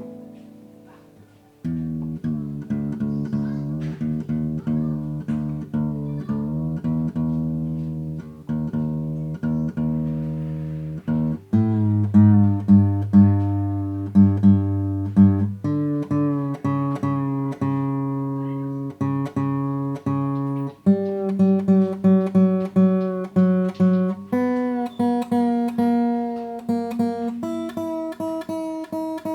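Yamaha FG-720 acoustic guitar (spruce top, mahogany back and sides), tuned a half step down, strummed through a chord progression. One chord is struck and left to ring, then steady strumming starts about two seconds in, with the chord changing every few seconds.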